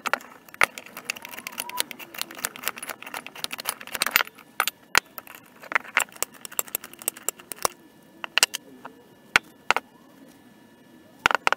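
Irregular sharp metallic clicks and clanks from a vintage Columbian bench vise and tools being handled. They come thick and fast for the first few seconds, then more sparsely.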